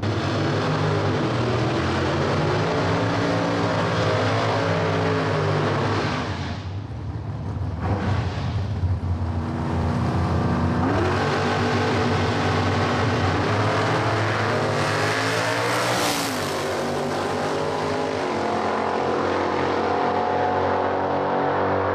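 V8 Holden Commodore drag car and a second drag car running at the start line, revving in bursts, then accelerating hard down the drag strip with the engine note climbing in pitch.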